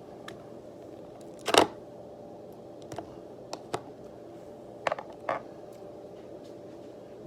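A few short clicks and knocks, the loudest about a second and a half in and a quick cluster around five seconds, over a steady faint hum.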